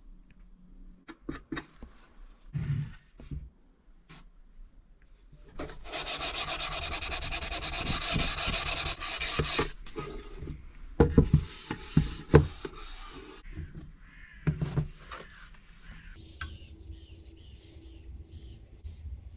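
Sandpaper scrubbing on wood: about four seconds of steady, rasping strokes in the middle, with short knocks and handling sounds of the wooden piece before and after.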